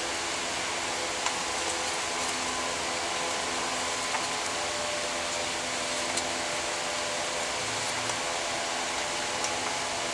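Steady machine hum and hiss fills the room. A few light clicks sound as a bolt-action rifle is handled and its action screws are tightened with an Allen wrench during reassembly.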